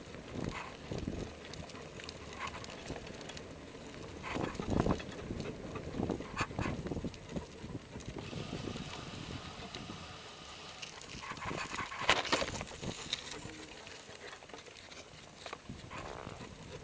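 Bicycle riding along a path with a Bouvier des Flandres puppy trotting alongside on a Springer spring-arm leash. The tyres roll and the bike knocks and rattles now and then, loudest about twelve seconds in.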